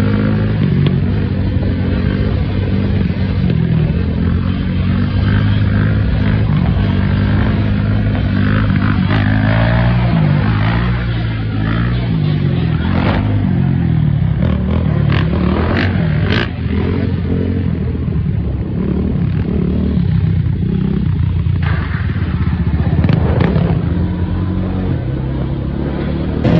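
Off-road engines of a Yamaha sport quad and dirt bikes, revving up and down again and again as they are ridden on wheelies. A few short sharp cracks come in the second half.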